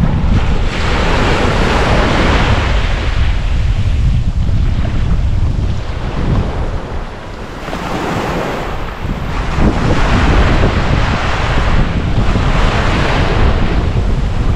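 Ocean waves breaking and washing onto a beach, swelling and easing every few seconds, with wind buffeting the microphone in a steady low rumble.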